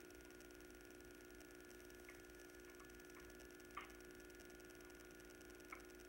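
Near silence under a steady electrical hum, with a few faint clicks: a small one about two seconds in, a sharper one near four seconds, and another near the end.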